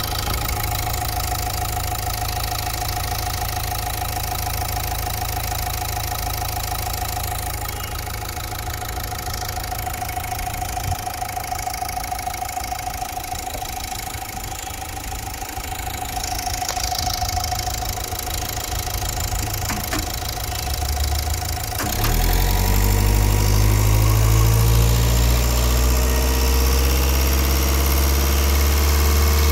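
Renault Captur engine idling steadily, which the owner judges sounds OK. About three-quarters of the way through it gets louder, with a stronger low hum that rises a little in pitch and then holds.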